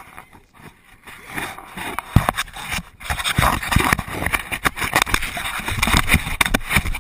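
Loud jostling and rumbling on a GoPro from a bouncing off-road vehicle, starting about two seconds in, with many sharp knocks and rattles over low rumbling buffeting.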